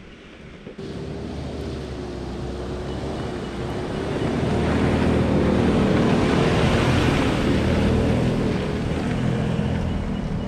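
A Ford Ranger 4WD ute driving past on a wet gravel track: its engine note and the crunch of tyres on gravel build up, are loudest about halfway through, then ease as it pulls away.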